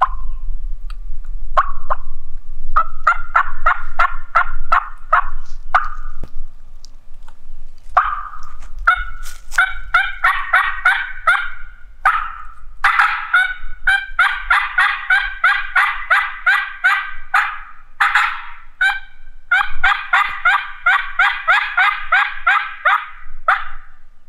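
Hen turkey calls blown on a three-reed, bat-wing-cut diaphragm mouth call with light prophylactic reeds. The runs of short yelping notes are spaced out at first, then from about eight seconds in come faster and louder in long excited strings.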